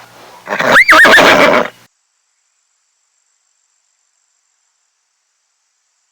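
Horse whinnying once: a loud, high, quavering call lasting about a second and a half, just after the start.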